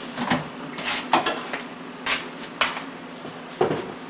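Jars and food containers knocking and clinking against each other and the refrigerator shelves as they are moved around, a handful of separate sharp knocks.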